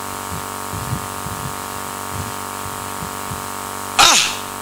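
Steady electrical hum and hiss from a church public-address system, with faint low voices underneath. About four seconds in, a loud, short vocal exclamation falls in pitch.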